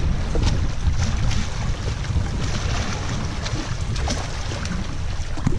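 Wind buffeting the microphone over small waves lapping against shoreline rocks.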